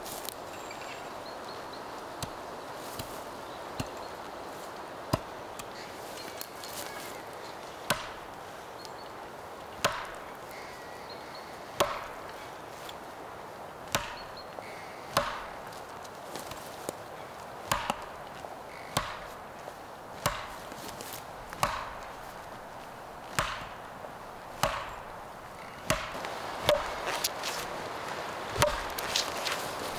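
Repeated sharp strikes, about one every two seconds, closer together near the end.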